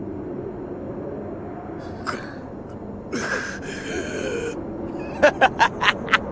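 Anime soundtrack: a low steady drone, with a character's short strained cry and a breathy gasp in the middle. About five seconds in, a fast run of sharp pulses starts, about six a second.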